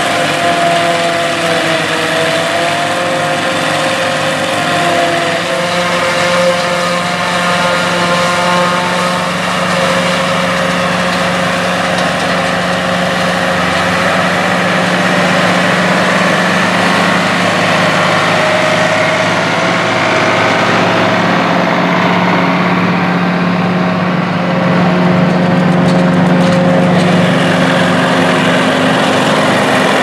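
Engines of a New Holland 1880 forage harvester and an International 966 Turbo tractor running steadily under load while chopping and blowing corn silage into a wagon. The drone is steady, with a few higher steady tones over it.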